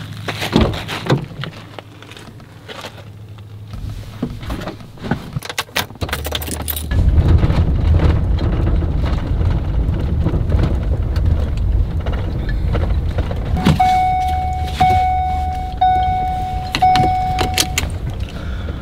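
Keys jingling, with clicks and knocks as a Ford F-150 pickup is got into. The truck's engine and road noise rise sharply about seven seconds in and run steadily as it drives. Near the end an electronic chime sounds four times, each about a second long.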